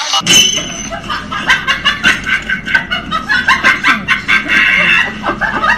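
A person laughing hard: a long run of short, quick bursts of laughter, about three a second, starting abruptly a moment in.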